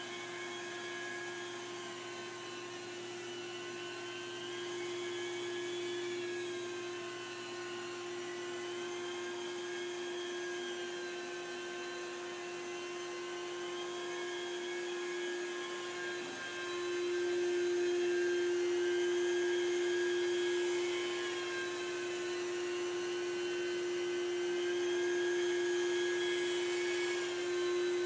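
Rotary carpet-cleaning extraction machine running steadily: a motor whine under a higher suction tone. The higher tone rises and falls in slow waves every few seconds. The sound grows louder a little past halfway.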